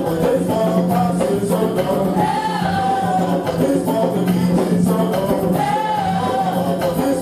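Congregational gospel singing with percussion, tambourine among it, over a steady bass, in a continuous rhythmic song.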